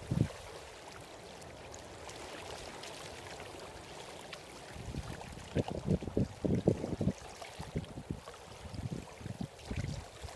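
Soft steady hiss of outdoor ambience at a river's edge, with running water. From about halfway, irregular low bumps on the phone's microphone.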